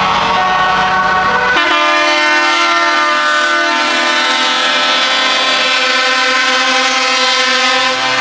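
Truck air horns sounding a long, loud multi-note chord. About a second and a half in, a deeper horn chord cuts in and holds.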